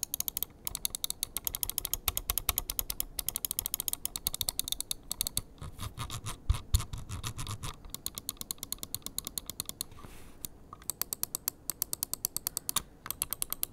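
G-Wolves Hati gaming mouse's main buttons clicked over and over, several crisp clicks a second, with a short pause about ten seconds in.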